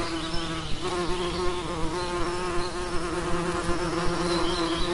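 Bumblebee buzzing in flight: a steady, droning wing buzz whose pitch wavers slightly.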